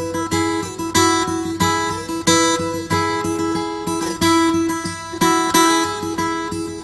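Background music: guitar strumming chords in a steady rhythm, with a few notes sliding in pitch.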